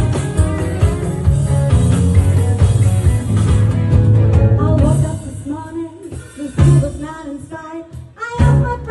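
Live band playing a blues-rock song with electric guitar and bass. About halfway through the low end drops away, leaving wavering melodic lines, and the full band comes back in near the end.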